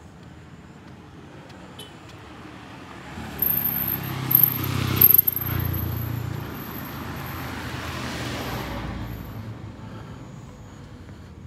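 A car driving past on an asphalt road: engine and tyre noise builds from about three seconds in, with two brief louder thumps at its loudest, then stays up for a few seconds and fades away near the end.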